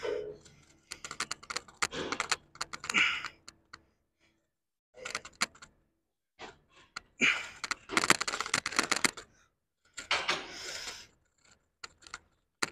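Rapid clicking and rattling in bursts of one to two seconds with short silent gaps, plus a few louder rushing sounds.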